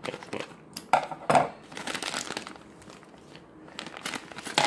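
Clear plastic bag of toy building bricks crinkling as it is handled and tipped, the loose plastic bricks shifting inside; the loudest rustles come a little after a second in, and it picks up again near the end.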